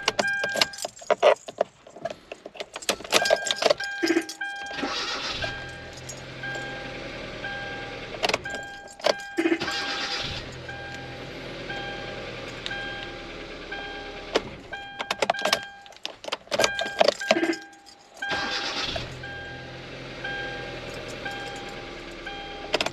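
A 2012 Kia Soul is started three times in a row. Each time there is a cluster of clicks, a short burst of cranking, and then the engine runs steadily, with a repeating warning chime beeping throughout. The starter only cranks intermittently: it works after being tapped, which points to a failing starter.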